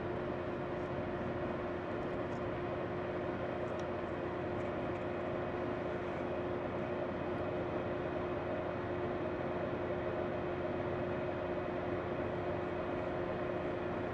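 Steady hum with a hiss over it and two constant tones in it, unchanging throughout, with no clicks or shots.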